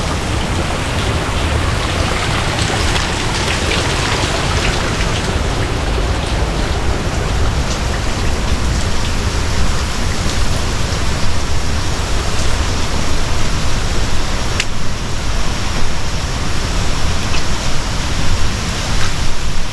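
Loud, steady rush of running water, a torrent of runoff or stream water pouring down beside the jungle track.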